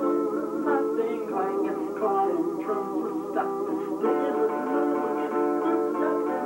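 A small group playing music on plucked string instruments, including guitar, with sustained notes ringing steadily.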